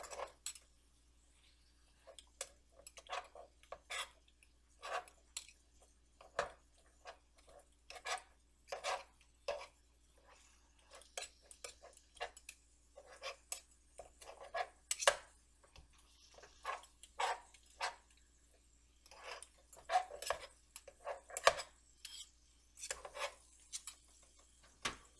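A utensil knocking and scraping against a frying pan in short, irregular strokes, chopping sausage into small pieces.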